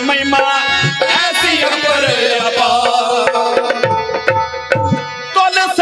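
Harmonium and dholak playing an instrumental passage of a Punjabi devotional song: a held, reedy harmonium melody over a steady hand-drum beat. The drum stops near the end.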